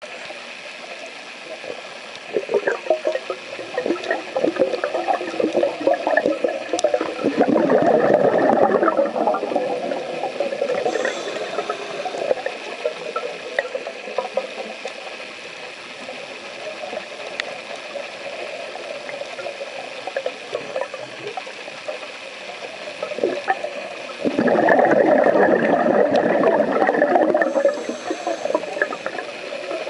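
Underwater sound of a scuba diver breathing through a regulator: two long bursts of exhaled bubbles, about seven seconds in and again about 24 seconds in, over a steady underwater hiss with scattered faint clicks.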